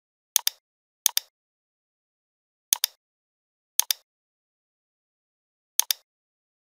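A computer mouse button clicked five times at uneven intervals. Each click is a quick double tick as the button is pressed and released, with silence between the clicks.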